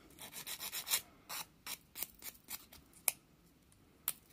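A hand-held 100/180 grit nail file rasping on the edge of a plastic press-on nail tip, about a dozen short strokes that trail off about two and a half seconds in. Two sharp clicks follow, a second apart.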